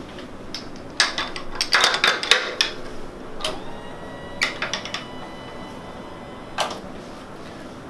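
Clicks and knocks from a chiropractic treatment table and the patient's body being moved on it as her low back is stretched. There is one knock about a second in, a quick cluster around two seconds, then single knocks every second or so, with a faint squeak in the middle.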